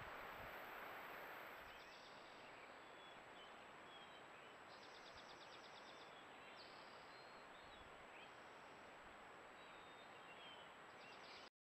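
Near silence: faint night-time meadow ambience through a trail camera's microphone, a steady hiss with a thin high whine and a few faint, short pulsed chirps now and then. It cuts off abruptly just before the end.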